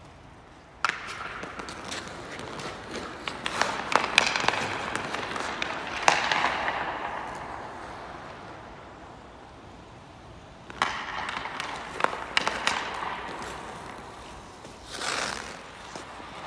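Ice hockey skates scraping and carving on rink ice, with sharp clacks of stick and puck. It starts suddenly about a second in, dies down through the middle, and picks up again about 11 seconds in.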